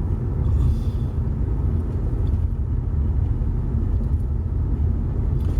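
Steady low rumble of a car's engine and tyres heard from inside the cabin while driving along the road.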